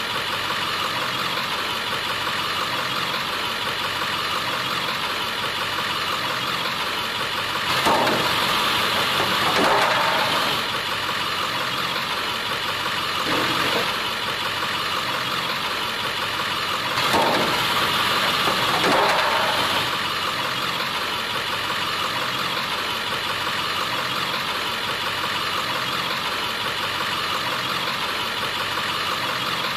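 Delivery truck engine idling steadily, with two louder stretches, each holding a pair of peaks, as the truck drives over the plastic water heater pans and rolls back.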